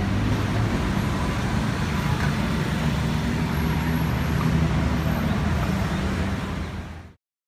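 City road traffic: a steady rumble of passing and idling engines with a low engine hum, cutting off about seven seconds in.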